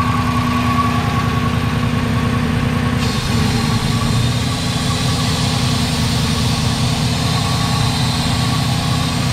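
A 2015 Dodge Challenger R/T's 5.7-litre Hemi V8 idling steadily while drawing air through an uncovered hole in its intake, an air leak. More hiss comes in about three seconds in.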